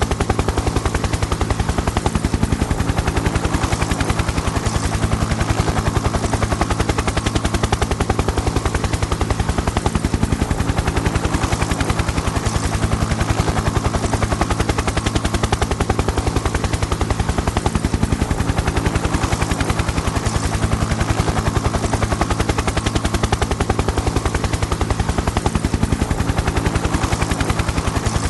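Helicopter rotor chopping in rapid, even beats over a steady low hum, holding constant with no rise or fall.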